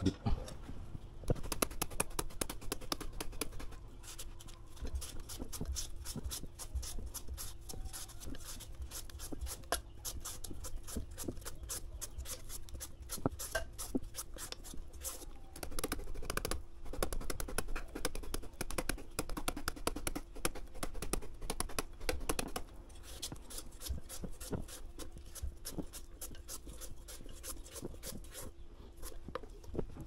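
A large kitchen knife striking rapidly into a hand-held green papaya, shredding it for papaya salad: a dense run of crisp taps with a few short pauses.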